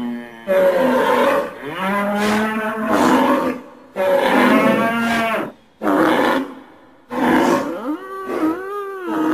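Cattle mooing, several long calls one after another with short pauses between them.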